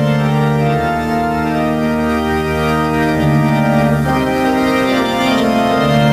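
Pipe organ of the Templo Central playing slow, sustained chords over a held bass note, the harmony changing every second or two.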